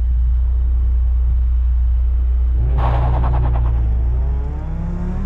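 A supercharged FA20 flat-four idles with a steady low rumble close under the microphone. About three seconds in, another car's engine briefly accelerates away, and near the end a rising engine note comes in.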